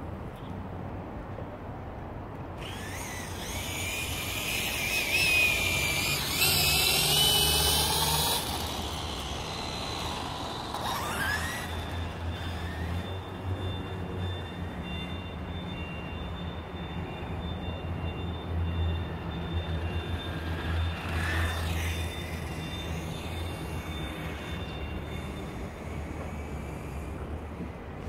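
Radio-controlled toy motorcycle's small motor whining as it is driven around, the pitch wavering up and down with speed; it is loudest from about three to eight seconds in, rises sharply again near eleven seconds and makes another close pass about twenty-one seconds in, over a steady low hum.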